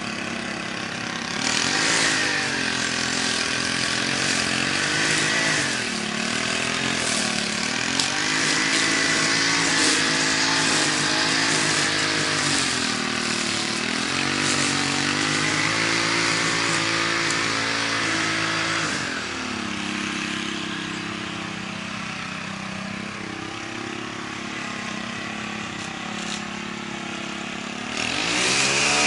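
Gas string trimmer engine running hard, its pitch rising and falling as it cuts thick overgrown grass. A little past halfway it eases off to a lower, quieter speed, then revs up again near the end.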